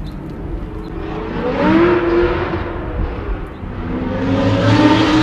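Road vehicles driving past, the engine sound swelling and fading twice, loudest about two and about five seconds in.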